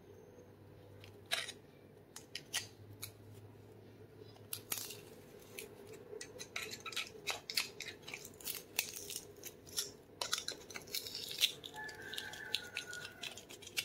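Pliers gripping and prying the rusty sheet-metal ferrule of a paintbrush off its plastic handle: a run of irregular metallic clicks and scrapes, thickest in the middle, with a short squeak near the end.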